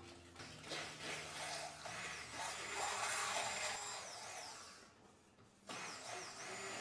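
Electric hand blender running in a bowl of eggs and sugar, beating them together; the motor stops for under a second about five seconds in, then starts again.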